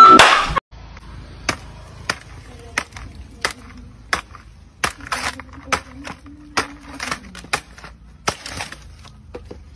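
Machete chopping at the stalk of a coconut bunch: about a dozen sharp, dry strikes, roughly one every half to three-quarters of a second.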